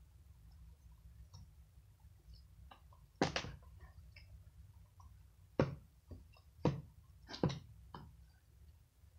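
Slime being kneaded and stretched by hand, squishing with small wet clicks and a few louder pops as air pockets burst, the loudest about three seconds in and three more in quick succession in the second half.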